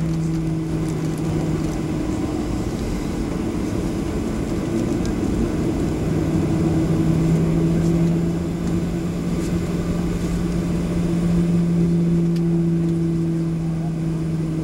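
Cabin noise of a Boeing 737 taxiing at low power: a steady rumble from the turbofan engines and airflow, with a low steady hum that fades out for a few seconds and then returns.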